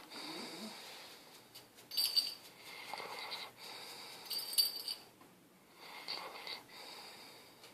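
Snoring during sleep, a run of breaths carrying a high whistling wheeze. The two sharpest and loudest breaths come about two seconds and four and a half seconds in, with softer ones between.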